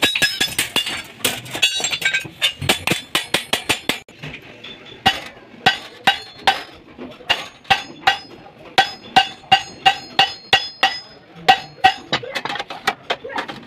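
Hammer blows on steel, struck in a steady run of about two to three a second, each giving a short metallic ring; the blows come faster in the first couple of seconds.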